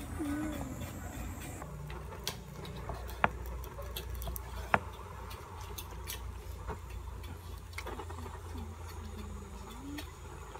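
Knife cutting beef innards on a wooden cutting board: irregular light taps and clicks, with two sharper knocks about three and five seconds in.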